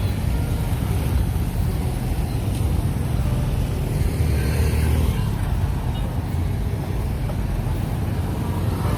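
Steady low rumble of motor vehicle engine and road noise.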